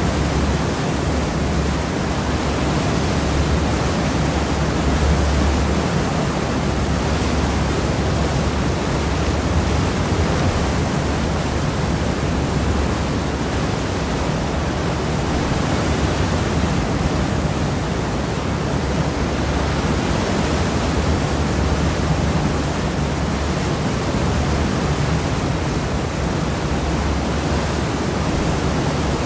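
Seawash at the stern of a cross-channel ferry: a steady rushing of churned sea water, with a steady low hum underneath.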